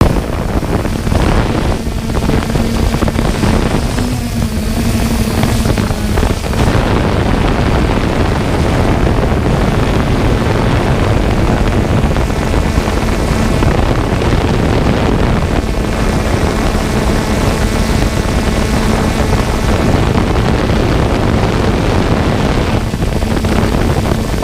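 3DR Solo quadcopter's propellers running with a steady hum under a constant rush of propeller wash and wind noise.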